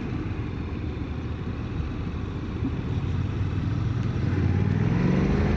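Motorcycle engine running at road speed with a low rumble, its pitch rising over the last couple of seconds as it accelerates out of a tight bend.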